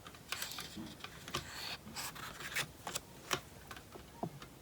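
Glossy photobook pages being handled and turned: soft rustling and sliding of paper, with a string of small ticks and taps.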